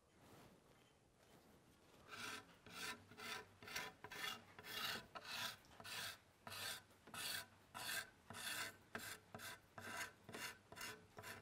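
A hacksaw blade scraped back and forth across a wooden osage orange bow limb, about two rasping strokes a second for some nine seconds: toothing the bow's back to rough it up before the sinew backing is glued on.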